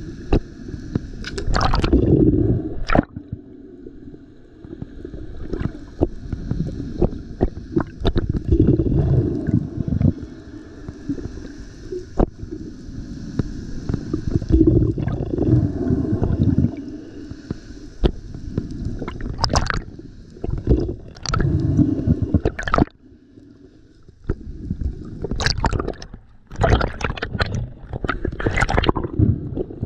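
Seawater gurgling and sloshing around a diver's camera in irregular surges, with scattered sharp clicks and a brief quieter spell a little past two-thirds of the way through.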